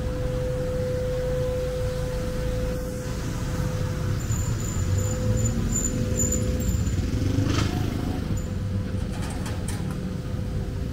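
City street traffic rumbling steadily, with a steady hum beneath it and a brief click about seven and a half seconds in.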